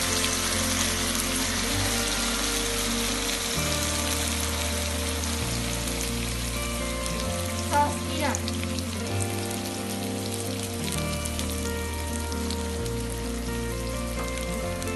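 Onions and dried chillies sizzling in hot oil in a wok as dark sweet soy sauce and another bottled sauce are poured in, a steady frying hiss. Background music plays underneath, its bass notes changing every second or two.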